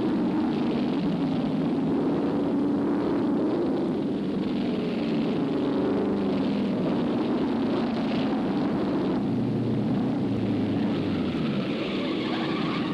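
Racing car engines running flat out, a steady loud drone over a noisy rush, on an old film soundtrack.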